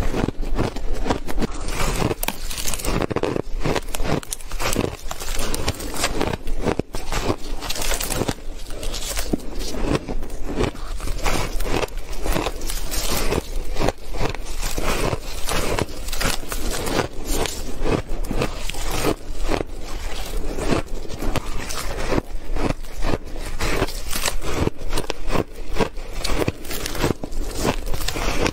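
Close-miked bites into frosty ice blocks: a dense, unbroken run of crisp crunches and crackles as the ice breaks between the teeth.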